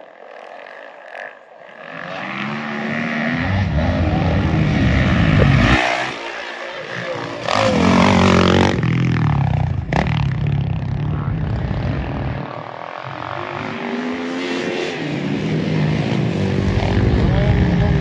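Motocross dirt bike engines revving hard as bikes go by on the track. The pitch climbs as they accelerate, and the sound swells, eases briefly about two-thirds of the way through, then builds again.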